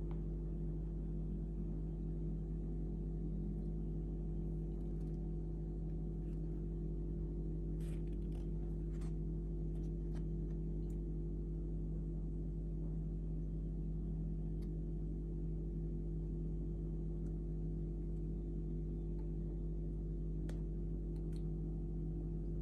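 A steady low hum of several unchanging tones, with a few faint clicks about eight to eleven seconds in and again near the end.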